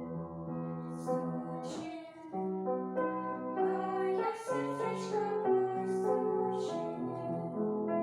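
Children's song: a voice singing a melody in held notes over instrumental accompaniment.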